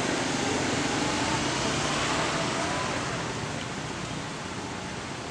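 Rushing noise of passing vehicles that fades gradually over the last couple of seconds.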